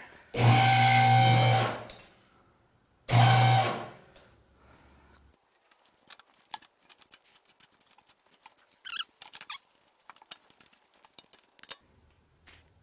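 Car lift's electric hydraulic pump motor running in two short bursts, about a second and then half a second long, with a steady hum. Faint scattered clicks and knocks follow.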